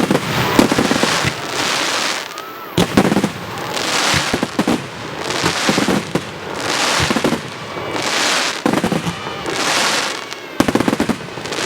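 A fireworks display of mostly small shells bursting at close range: a sharp bang every couple of seconds, each followed by a swelling crackling hiss from the burning stars, with a quick run of cracks near the end.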